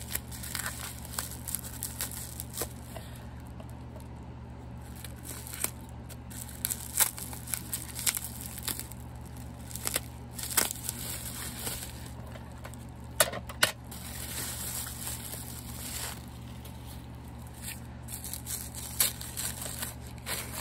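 Paper wrapping rustling, crinkling and tearing as an item is unwrapped by hand, with a few sharper crackles around the middle, over a steady low hum.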